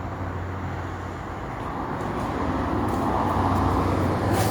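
Road traffic on the nearby street: a vehicle passing, its rumble growing louder toward the end.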